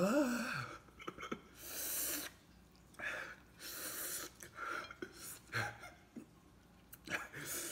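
A man's short pained cry that rises and falls in pitch, then a series of sharp hissing breaths through the mouth, the reaction to the burn of extremely spicy instant noodles.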